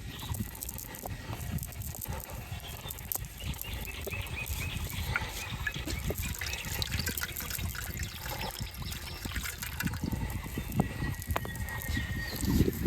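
Water splashing and dripping, with many small irregular clicks and knocks.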